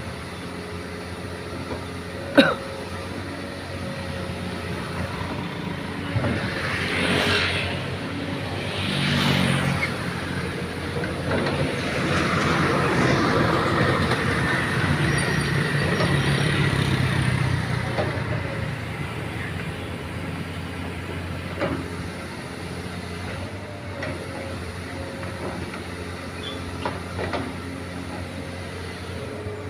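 Doosan excavator engine running steadily, with a few knocks. The noise swells louder twice early on and again for a longer stretch in the middle.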